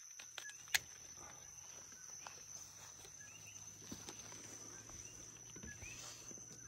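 Night chorus of a steady high insect trill with short chirps repeating through it. Under a second in there is one sharp snip from pruning shears cutting a dragonfruit from the cactus.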